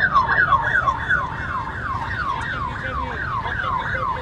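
Escort vehicle's siren sounding a fast yelp: a falling tone repeated about three times a second, over a low road rumble.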